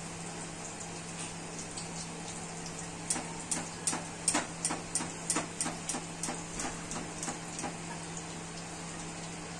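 Chicken deep-frying in hot oil in a kadai, a steady sizzle. About three seconds in, a run of sharp ticks comes at roughly three a second for about five seconds, then dies away.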